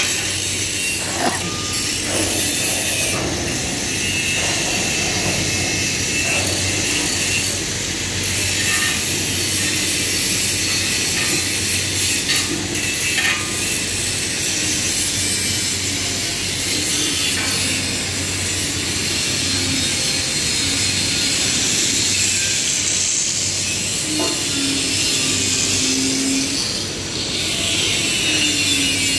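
Steady, high-pitched machinery noise of a metal fabrication shop, with a few scattered knocks.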